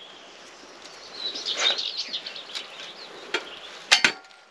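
A metal knife and fork knocking and scraping against a rock-hard, burnt pizza crust in a camp cooker's pan. There are a few light clicks, then two sharp knocks near the end, the loudest sounds here. A small bird chirps about a second in.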